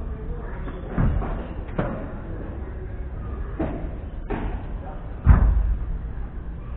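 Padel rally: the ball is struck back and forth with a handful of sharp knocks from rackets and the court walls. The loudest is a deep thud about five seconds in.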